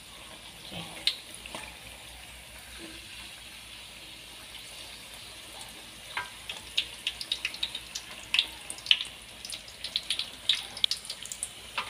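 Corn-kernel fritter deep-frying in hot oil in a wok: a steady sizzle, with sharp pops and crackles that grow frequent in the second half.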